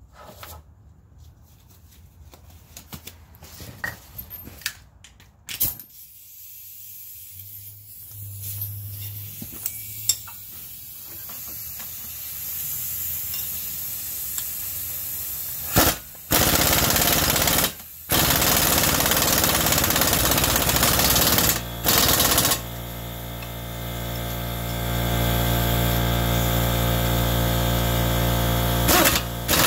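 Impact wrench hammering a front-suspension bolt tight on the steering knuckle of a Nissan Elgrande E51, in several bursts from about halfway, with a longer steady run near the end. Before that there are light clicks and knocks of the socket going on, and a hiss that slowly grows.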